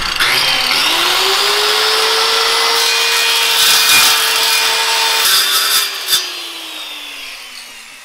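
Handheld circular saw spinning up and cutting through aluminum diamond plate. It is switched off a little over five seconds in and its motor whines down.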